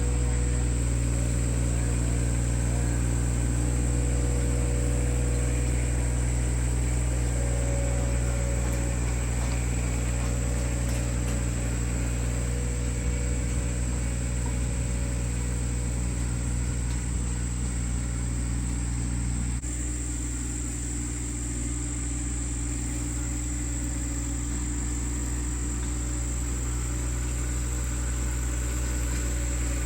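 Vehicle engine running steadily at an even speed, its tone shifting slightly and dropping a little in level about twenty seconds in.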